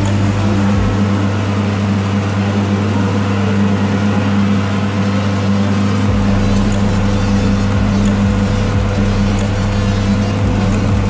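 Abra's engine running steadily underway, a low drone.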